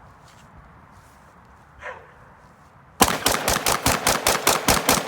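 DPMS AR-15 rifle firing a rapid string of shots, about six or seven a second, starting suddenly about three seconds in after a quiet lead-in.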